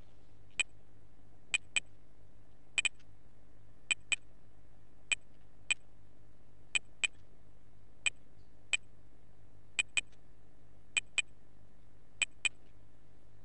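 Computer keyboard keys being typed slowly one at a time: about twenty short, sharp clicks at uneven spacing, many in close pairs, as a registration number is entered digit by digit. A steady low hum runs underneath.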